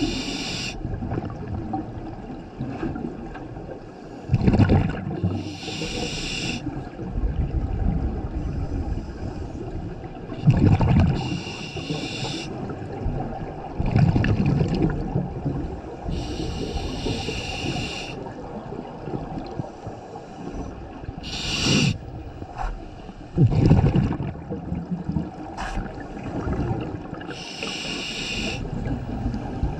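Scuba diver breathing through a regulator underwater: a hissing inhalation about every five to six seconds, each followed by a low rush of exhaled bubbles.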